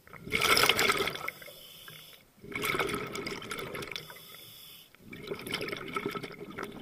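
Scuba regulator exhaust bubbles, heard underwater: three bursts of bubbling exhaled air, each about two seconds long, separated by short pauses.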